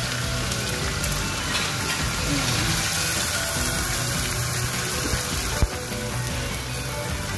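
Blended shallot, garlic, ginger and lemongrass paste poured into hot oil in a wok, sizzling steadily as its water hits the oil. A single sharp knock about five and a half seconds in.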